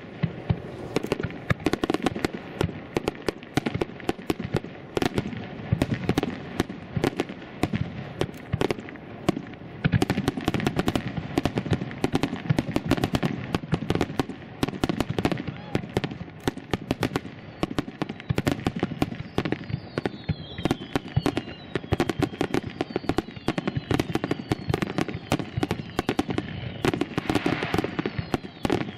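Fireworks display: a dense, continuous barrage of bangs and crackling from shell bursts, with several falling whistles in the second half.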